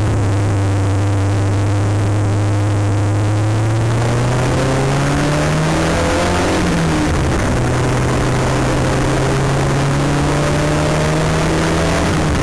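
Porsche 924 race car's four-cylinder engine heard from inside the cabin under hard acceleration, its pitch climbing steadily, dropping at an upshift about seven seconds in, then climbing again, with wind and road noise underneath.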